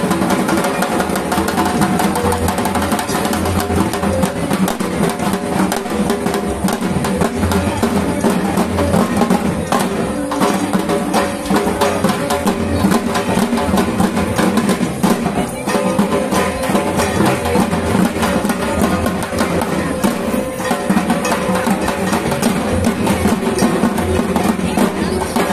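An ensemble of dhak drums, large plumed barrel drums beaten with sticks, playing a fast, continuous rhythm together.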